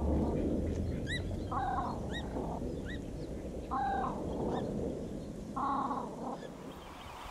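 Great crested grebe calling: three short harsh calls about two seconds apart. Thin high chirps come between them in the first half, over a steady background hiss.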